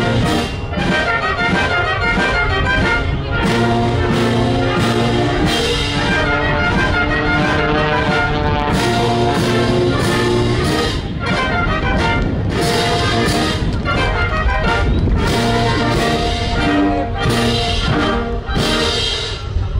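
Orchestral music with brass instruments playing.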